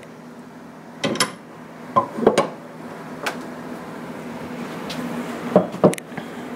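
Metal clinks and knocks as a Faxon 6.5 Grendel barrel is pushed and worked into an AR-15 upper receiver clamped in a vise block: about seven sharp, separate knocks, some ringing briefly, with two close together near the end. The barrel is not sliding in correctly.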